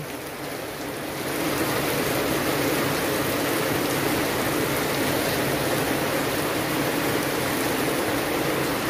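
Heavy rain falling on concrete and runoff water rushing along an open drain channel, a steady hiss that grows louder about a second in.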